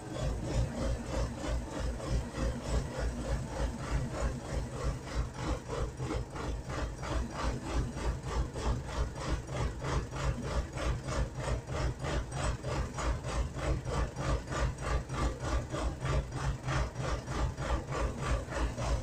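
MTZ (Belarus) tractor's turbo diesel engine during a cold start at −15 °C on starting fluid, without preheating or glow plugs. It gives a steady rhythmic pulsing, about three to four beats a second.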